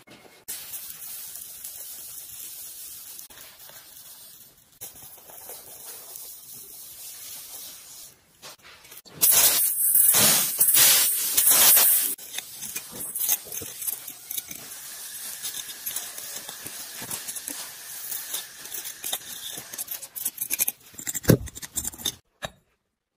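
Molten metal pouring into a sand mold, hissing and crackling as it fills the cavities. The hiss is loudest for about three seconds near the middle. Near the end there is a sharp knock and a few clicks as the cast pieces are dug out of the sand.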